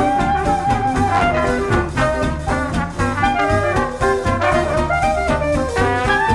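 Background jazz music with brass instruments carrying a melody of held notes over a steady beat.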